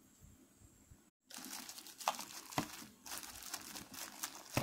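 Plastic packaging and bubble wrap crinkling as it is handled, starting suddenly just over a second in, with a few sharper crackles.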